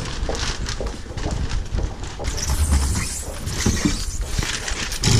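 Luggage trolley loaded with a plastic-wrapped kayak being hauled up a flight of steps: irregular knocks and clatters as the metal trolley and kayak bump against the stairs and walls, with a heavy thump near the end.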